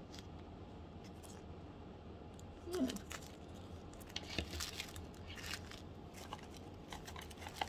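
Small clear plastic bag of jump rings being handled and opened, crinkling and rustling with a run of short clicks, mostly from about three seconds in. A brief vocal sound, like a short hum, comes just before the rustling starts.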